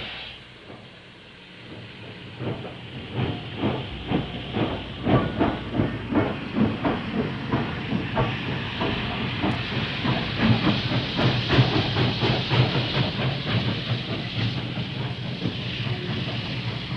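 B&O steam locomotive working: exhaust chuffs start about two seconds in, grow louder and quicken, then blur into a steady hiss of steam over a low rumble.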